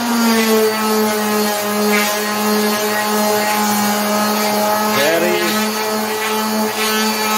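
Skil 280-watt orbital finishing sander running at its top speed setting, sanding a board: a steady electric-motor hum with a whine above it. The pitch settles a little lower just after the start, then holds.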